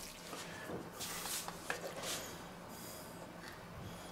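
Quiet scraping and rubbing of a wooden spoon pushing thick white sauce out of a frying pan onto cauliflower in a steel baking dish, in a few short, soft strokes.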